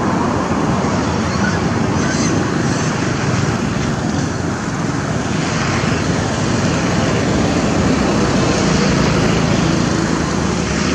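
Steady, loud rushing background noise with no distinct events standing out.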